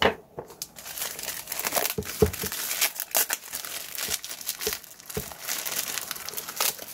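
Plastic shrink-wrap on a camera box being torn open and pulled off, crinkling and crackling irregularly, with a sharp crackle at the start.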